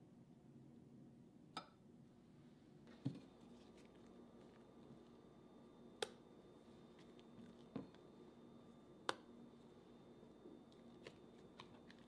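Faint kitchen handling sounds: about five sharp clicks and taps of a utensil against a glass mixing bowl, with soft scraping as whipped cream is spooned into cream-cheese batter.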